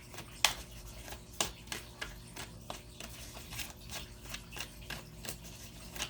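Tarot cards being shuffled and handled by hand: a string of irregular light taps, flicks and rubs, a few a second.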